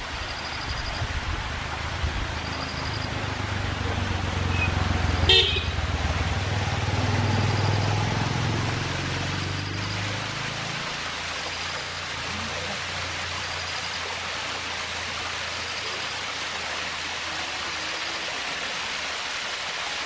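Small waterfall running down a rock face, a steady rushing splash. Over the first half a vehicle engine's low rumble builds, is loudest about eight seconds in and fades out by about eleven seconds, with one brief sharp sound about five seconds in.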